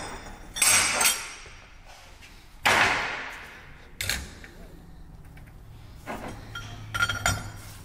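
Steel automatic-transmission parts, an overdrive clutch drum, its coil return spring and a splined hub, knocking and clanking as they are handled and set on a workbench: about five sharp metallic knocks with short ringing, the loudest in the first three seconds.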